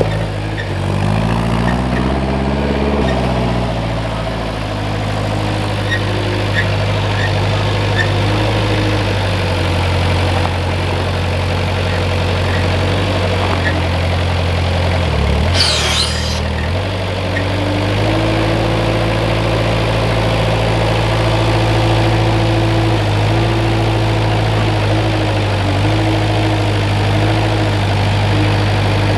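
Engine of a Moffett truck-mounted forklift running as it drives, revving up and back down about two seconds in, then holding a steady speed that rises and falls a little. A brief dip and a sharp click about halfway through.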